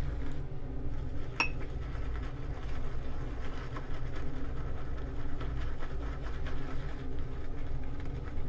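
Shaving brush working shaving soap into lather in a dish, with one sharp clink against the dish about a second and a half in, over a steady low hum.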